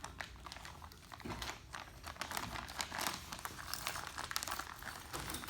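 Irregular crinkling and rustling with many scattered light clicks, the sound of something being handled at close range.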